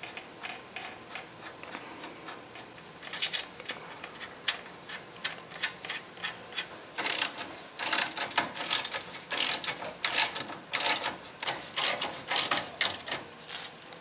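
Ratchet clicking in quick repeated bursts as lock nuts are run down onto the ball joint's mounting bolts, after several seconds of light metal clicks while the nuts are started by hand.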